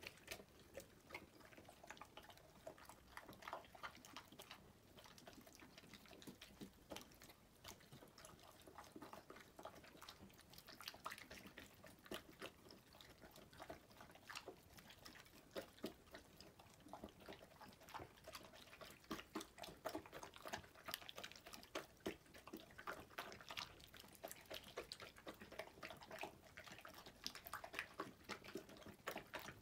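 Two dogs, a poodle and a golden retriever, eating soft, wet food from bowls: faint, irregular wet smacking and chewing clicks, a little louder in the second half.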